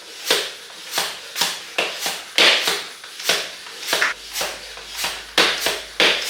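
A regular run of short hissing or rubbing strokes, about two a second, each starting sharply and fading quickly.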